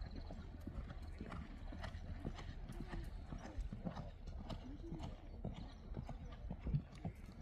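Horse's hooves clip-clopping as it is ridden: a steady run of hoofbeats, several a second.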